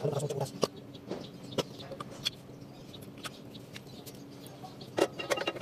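Scattered light clicks and taps of a metal brake caliper and its bracket being handled and fitted together. A hen clucks briefly at the start and again about five seconds in.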